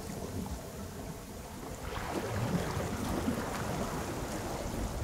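Wind buffeting the microphone over the wash of surf, a steady rushing noise that grows louder about two seconds in.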